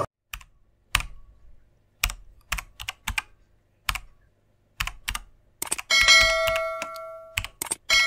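End-screen animation sound effects: a string of sharp, separate clicks like keyboard keys or mouse clicks, then about six seconds in a bell-like notification ding that rings and fades over a second or so, followed by a few more clicks.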